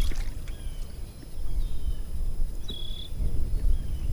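Outdoor ambience: a steady low wind rumble on the microphone, with two short high chirps, one at the start and one near three seconds in, and a few faint light clicks.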